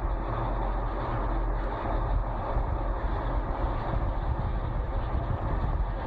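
Heavy dump truck's diesel engine running steadily, with a deep low rumble, as the truck pulls at a tree stump.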